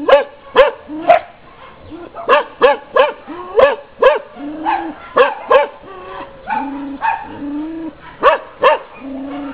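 Shelter dogs barking in sharp, loud clusters, about a dozen barks, with several long, level whines between the barks in the second half.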